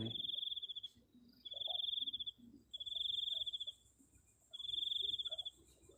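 A night insect trilling high and fast in bouts of about a second each, with short gaps between, four bouts in all.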